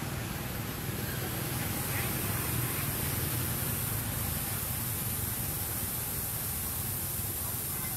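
Steady background noise: an even hiss with a low, fluttering rumble underneath and no distinct event.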